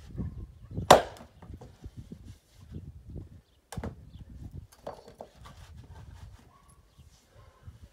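Axe splitting firewood on a chopping block: a sharp crack about a second in and another just before four seconds. Between the strikes come softer wooden knocks as the logs are handled.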